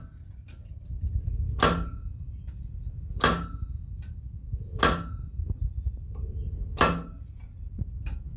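Homemade Bulldog 15 blacksmith power hammer striking four light single blows, about one every second and a half, each a sharp knock with a short metallic ring, over a low steady rumble. The stroke is set as low as possible for fine, gentle control of the hits.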